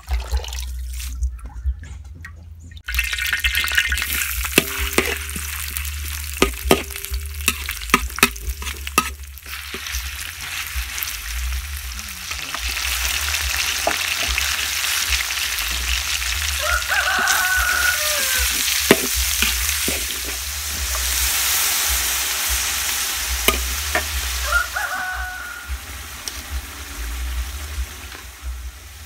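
Water pours briefly into a metal basin, then sliced pork and garlic start sizzling in hot oil in a wok about three seconds in. The frying hiss runs on steadily while a metal spatula clacks and scrapes against the pan, most often early on.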